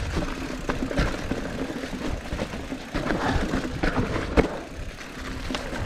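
Mountain bike rolling fast over rough, rocky trail: tyres rumbling on dirt and rock with a continuous rattle of small clicks and knocks from the bike, and one sharp, louder knock about four and a half seconds in.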